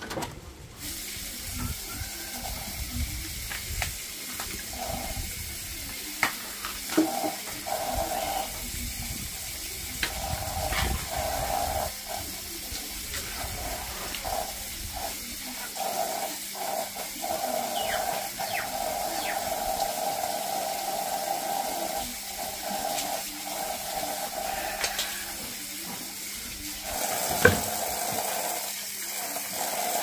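Water running from a hose pipe and splashing as peeled bamboo shoots are rinsed under it, with a few sharp knocks of the shoots being handled, the loudest near the end.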